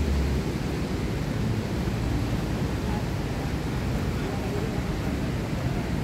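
Beach ambience: a steady low rumble with some faint voices of people nearby.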